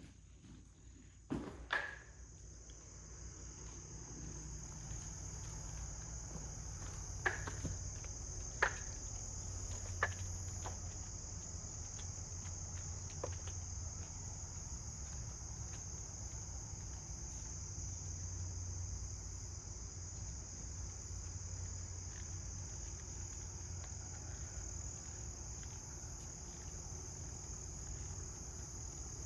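Steady chorus of insects, a continuous high-pitched buzz, with a low rumble underneath and a few short knocks in the first half.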